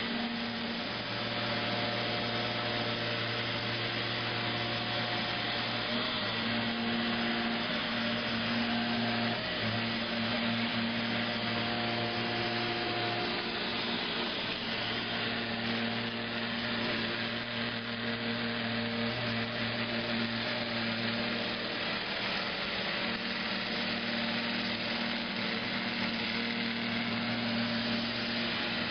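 Neato XV-11 robot vacuum cleaner running while it drives about on its own: a steady motor whir with a low, even hum.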